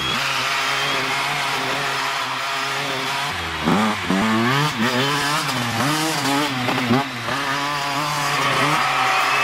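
Dirt bike engine idling steadily, then from about three and a half seconds in revving up and down several times, before settling into a steadier, slowly rising drone near the end.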